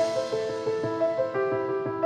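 Background music: a soft piano melody of sustained notes changing every fraction of a second.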